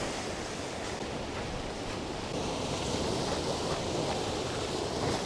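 Ocean surf washing against a rocky shore, a steady rush of noise, with wind on the microphone.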